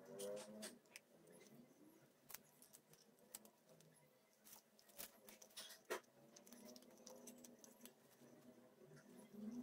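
Very quiet, irregular scratches and small clicks of hand-sewing: a needle and thread pulled through an elastic band and a shoe strap, with hands shifting on newspaper. The sharpest click comes about six seconds in.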